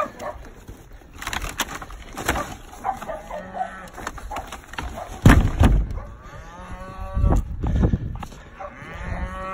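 Cattle mooing, three long calls, the two clearest in the second half. Knocks from the wooden barn door being handled and shut come between them, the loudest about five seconds in.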